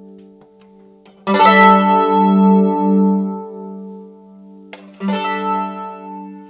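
1907 Gibson A4 mandolin strummed: a chord rings out and fades, a second strummed chord comes about a second in and rings for several seconds, and another strum near the end is left ringing.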